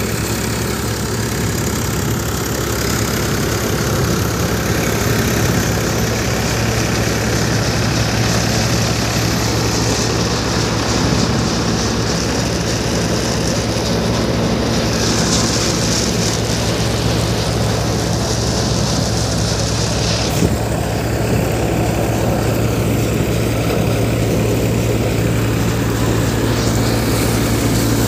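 Multicrop groundnut thresher machine running steadily: a continuous loud mechanical drone over a constant low engine hum, with one brief knock about twenty seconds in.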